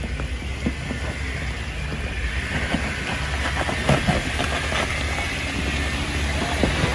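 Jeep Wrangler Rubicon's engine running low and steady as it crawls slowly over rocks, with gravel crunching and rocks knocking under the tyres, most busily in the middle of the stretch.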